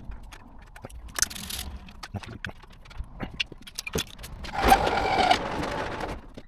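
Metal hand tools and sockets clinking and clattering while working on an engine, with a louder metallic rattling scrape lasting about a second and a half near the end.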